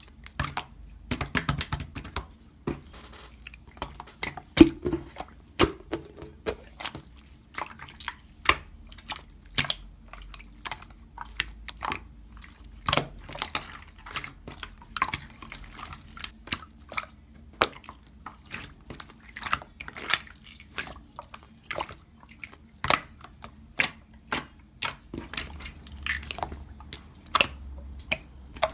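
Irregular sharp clicks and taps, one to a few a second, over a faint steady hum.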